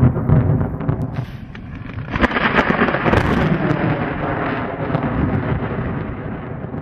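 Thunder: a low rumble, a sharp crack about a second in, then a loud clap about two seconds in that rolls on and slowly fades.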